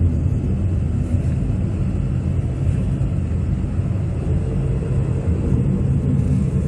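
Vehicle driving along a road: a steady low rumble of engine and road noise.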